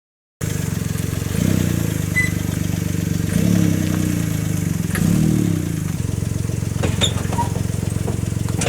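An engine running steadily, starting suddenly less than a second in, with a few faint clicks over it.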